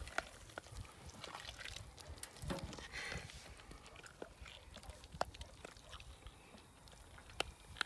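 Faint, scattered wet clicks and squelches of hands working inside a plucked chicken carcass, pulling the guts out.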